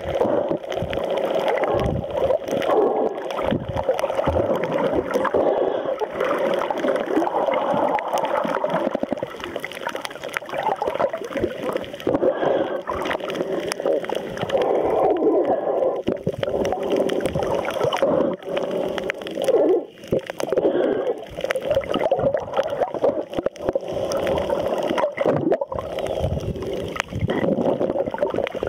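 Muffled rushing and gurgling of water as heard through a submerged camera's microphone, swelling and fading unevenly, with a brief drop about twenty seconds in.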